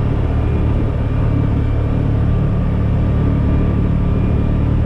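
Motor vehicle engine running at a steady pace while driving, a steady low drone with road noise.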